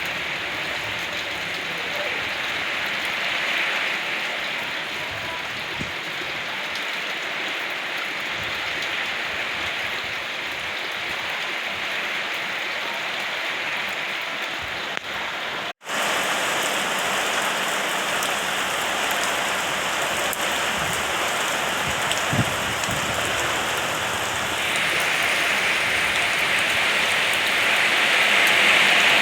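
Steady rain falling, an even hiss of drops on surfaces. It breaks off for an instant about halfway through, then carries on and grows heavier near the end.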